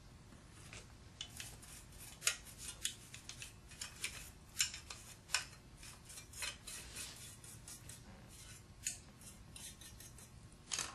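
Irregular light metallic clicks and clinks from the cast end bell and rotor shaft of a Franklin electric motor being handled and fitted together during reassembly.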